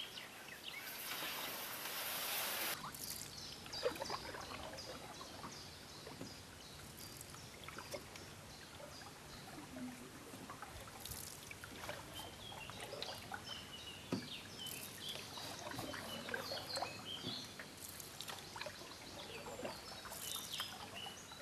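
Canoe being paddled on still water: paddle strokes with water splashing and dripping, a louder splashing rush about a second in, and a few knocks. Small birds chirp over it.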